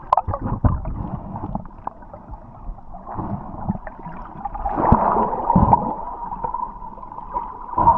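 Water gurgling and sloshing, with irregular low thuds and a burst of denser gurgling about five seconds in.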